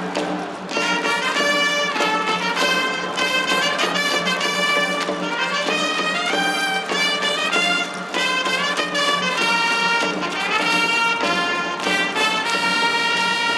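Ballpark cheer music led by brass, playing a melody of stepped, held notes.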